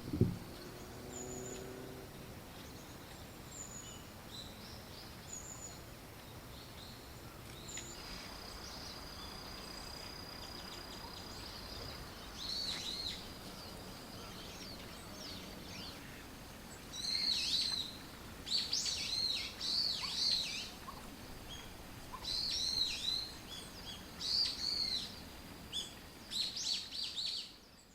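Small songbirds calling: a few faint, thin, high notes at first, then, from a little past halfway, repeated bunches of quick, sharp, sweeping chirps, the loudest sounds here.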